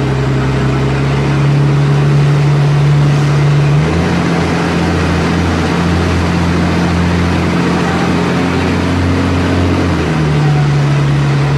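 Volvo B58E bus's rear-mounted straight-six diesel engine running loudly under way. Its steady note drops to a lower pitch about four seconds in and rises back near the end.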